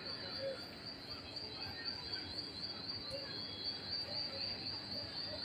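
Supermarket ambience: a steady high-pitched pulsing whine over a faint murmur of distant shoppers.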